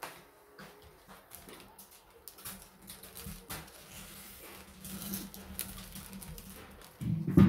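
Plastic plant sleeve crinkling and crackling as it is handled, with a louder thump near the end.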